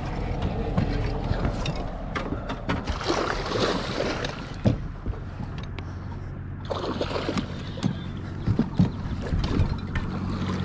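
Handling noise while a hooked bass is reeled in from an aluminium jon boat: rod and reel working, with irregular clicks and knocks, over a steady low hum.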